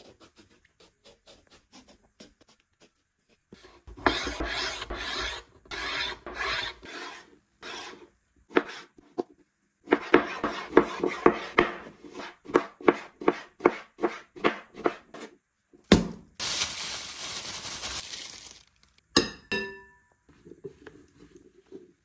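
A chef's knife peeling and then dicing an eggplant on a wooden cutting board: long rasping strokes, then a run of quick, even chops, about three a second. Near the end come a knock, a couple of seconds of steady rustling, and a glass bowl ringing briefly.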